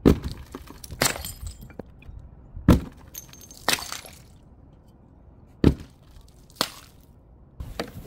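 Glass breaking in six separate sharp impacts, in pairs about a second apart, each followed by a brief ringing tail.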